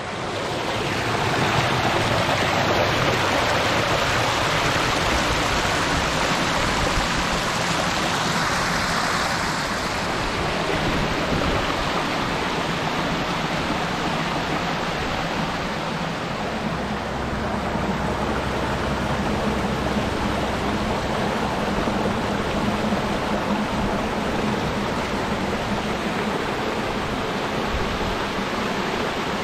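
Water of a rocky stream rushing and splashing over small falls, a steady continuous rush.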